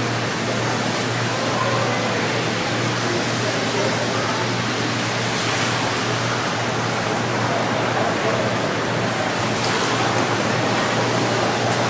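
Steady, even hiss of room noise with a low hum underneath, unchanging throughout.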